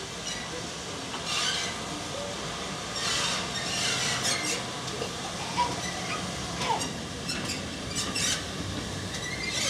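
Steam-hauled train, GWR Modified Hall 4-6-0 No. 7903, drifting slowly into a station with the regulator shut. Its wheels rumble on the rails without exhaust beats, with a few short squeals and bursts of hiss.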